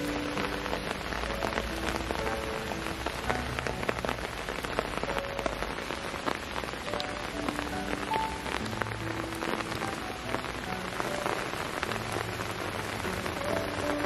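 Steady rain pattering, many separate drops ticking close by, with soft background music of slow held notes.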